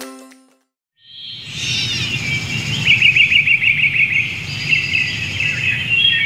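Music fades out, then about a second in small birds start chirping and tweeting over a low steady rumble, with a rapid trill of about ten notes a second near the middle.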